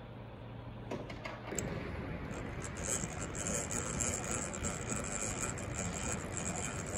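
Power drill running steadily as a thin bit drills the oil thrower hole through the end of a Rolls-Royce Merlin camshaft and its drive gear. It starts about a second and a half in, after a few light handling clicks.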